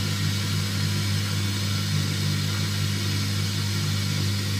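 Water hissing through the filling valve of an ECA Proteus Plus Blue combi boiler as the heating system is topped up, the pressure climbing, over a steady low hum.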